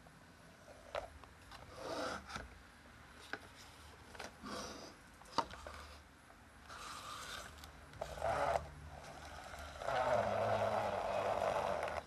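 Plastic toy dump truck handled by hand: sharp plastic clicks and knocks as its dump bed is tipped and set down, and scraping runs as its plastic wheels roll over a wooden tabletop, the longest and loudest near the end.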